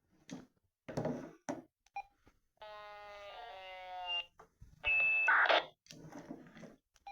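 Radtel RT-4D handheld radio sounds: short noise bursts and brief high beeps, then a held buzzy tone with many overtones lasting about a second and a half. The loudest moment is a half-second rush of hiss with a steady high beep in it, about five seconds in, followed by more short crackles.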